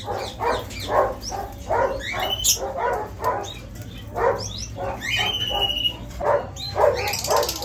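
A dog barking over and over in short, quick barks, with bird whistles mixed in.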